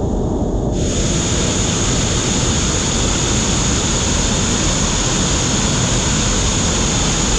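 Loud, steady rush of a heavy storm downpour with wind, turning brighter and hissier under a second in.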